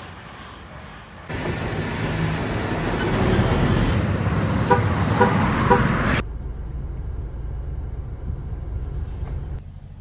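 Road traffic heard from inside a car at night, with a car horn beeping three times in quick succession about five seconds in.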